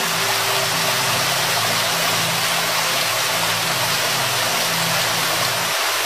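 Waterfall, a steady rushing of falling water, with low sustained tones underneath.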